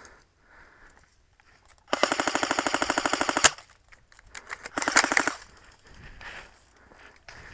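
Automatic airsoft rifle firing full-auto: a rapid, evenly spaced burst of about a second and a half, then a second, shorter burst about five seconds in.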